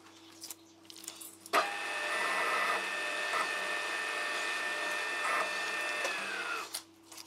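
A milling machine's spindle motor, with a countersink cutter in the chuck, switched on with a sudden start: it runs with a steady whine for about five seconds, then is switched off and winds down, its pitch falling away.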